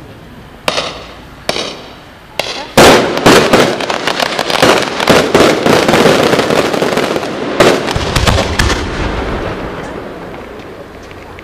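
Aerial fireworks display: three separate bangs about a second apart, then from about three seconds in a dense volley of rapid bangs and crackling, which thins out and fades over the last few seconds.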